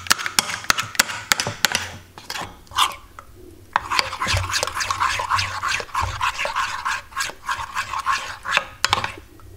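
Metal spoon stirring thin flour batter in a ceramic bowl, scraping and clicking against the bowl in quick strokes, with a short pause about three seconds in. The batter is being stirred until no lumps remain.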